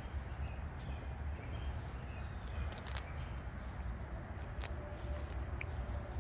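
Cilantro (coriander) plants being pulled up from the soil by hand, a rustling of leaves and stems with scattered small snaps and clicks as the roots tear free, over a steady low rumble.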